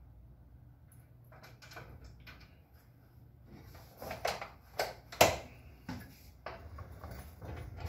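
Several sharp metallic knocks and clanks as parts at the truck's rear leaf spring and axle are handled, starting about three and a half seconds in with the loudest about five seconds in, over a low steady hum.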